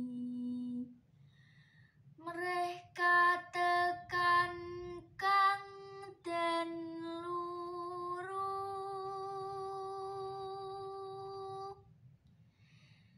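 Solo female voice singing Javanese tembang macapat unaccompanied. A held note ends about a second in; after a short pause comes a phrase of short clipped syllables, then a line that settles into one long held note, followed by a brief breath near the end.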